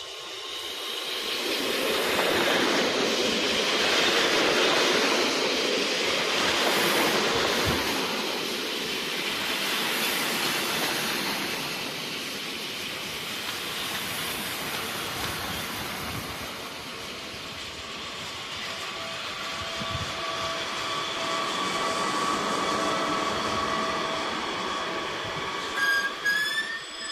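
Push-pull train of double-deck coaches with a BB 22200-series electric locomotive pushing at the rear, running along the platform. The wheel-and-rail noise swells over the first few seconds as the leading driving trailer comes by and carries on as the coaches pass. From about the middle a steady whine joins in, and near the end short rising whines sound as the locomotive passes.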